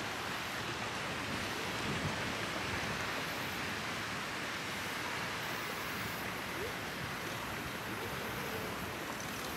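Steady outdoor ambience: an even, unbroken hiss like distant surf or wind, holding at one level throughout.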